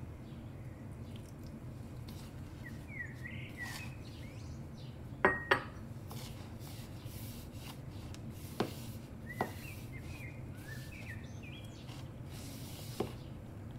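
Hands working crumbly flour dough in a plastic bowl: a few sharp clinks and knocks, the two loudest close together about five seconds in, over a steady low hum. Birds chirp briefly in the background.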